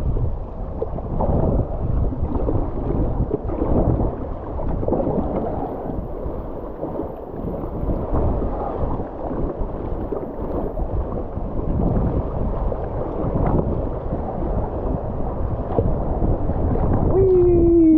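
River water rushing and splashing around a kayak, with wind buffeting the microphone as a steady, fluctuating rumble.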